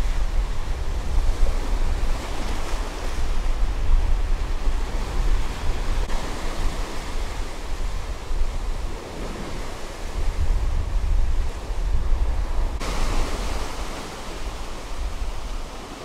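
Sea surf breaking and washing up a black sand beach, a steady hiss that swells and ebbs with each wave, with gusts of wind rumbling on the microphone.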